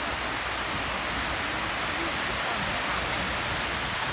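Steady rush of water falling down the walls of the 9/11 Memorial reflecting pool into the basin below.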